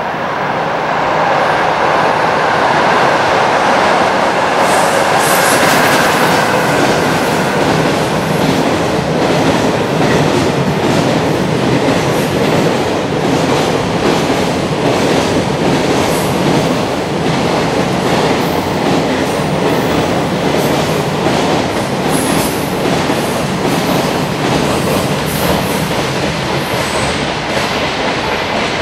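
Long container freight train passing. Its steady rumble swells over the first couple of seconds, then runs on with repeated wheel clacks over the rail joints, wagon after wagon.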